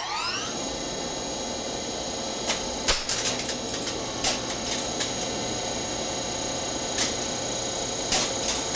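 Game-show sound effect of a machine spinning up: a whine finishes rising in pitch about half a second in, then holds steady over a noisy hum. Scattered sharp clicks sound through it.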